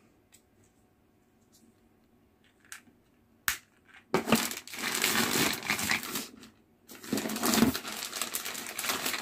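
A few light clicks and a sharp tap, then plastic bags crinkling loudly as they are handled and unpacked, in two stretches of a couple of seconds each.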